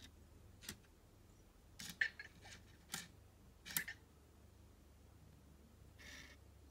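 Small mechanical clicks and ticks from Anki Vector robots shifting their heads and bodies between turns: about five sharp clicks in the first four seconds, then a short soft hiss about six seconds in.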